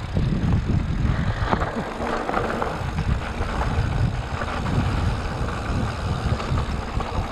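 Mountain bike riding fast down a dirt trail: wind buffeting the ride-camera microphone, with the tyres crunching over dirt and the bike rattling and knocking over bumps.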